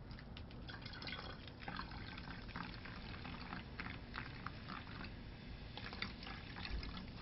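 Cola being poured from one plastic Coca-Cola bottle into another: faint liquid pouring with many small crackles.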